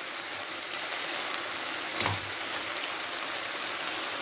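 Cabbage, potato, carrot and mushrooms sizzling steadily in a frying pan, with one soft knock of the spatula against the pan about two seconds in.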